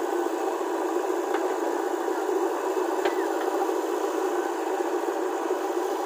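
JCB 3DX backhoe loader's diesel engine running steadily while the backhoe digs, heard as an even, noisy drone. Two faint clicks, about a second and a half and three seconds in.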